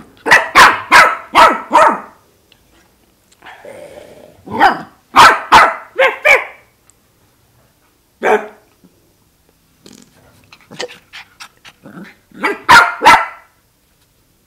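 Lhasa Apso puppy barking in short, sharp, high barks: a quick run of about five, another run of four or five a few seconds later, a single bark, then a last quick cluster near the end.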